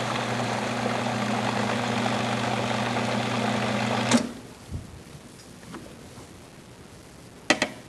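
Robot Coupe food processor motor running steadily as it blends the aioli, then switched off about four seconds in. Two sharp clicks near the end.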